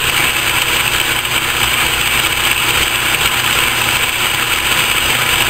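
Atlas metal lathe running steadily on its lowest feed setting, lead screw turning through the quick-change gearbox, with a loud, even mechanical racket. The noise is what the owner shows as the lathe's problem: a feed gear in the drive has a tooth folded over and is cracked.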